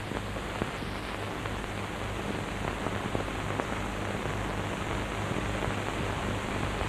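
Steady hiss with a low, pulsing hum and scattered faint crackles: the background noise of an old film soundtrack.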